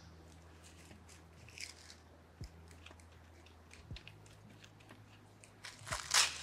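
Quiet handling of paper and craft tools on a table, with faint rustles and small taps, then near the end a short rip of paper being torn by hand.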